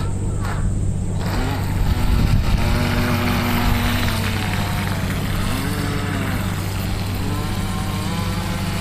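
Small electric 380 motor of a radio-controlled speedboat running under way, a whine whose pitch rises, holds and falls several times, over the hiss of the hull across the water. It starts about a second in.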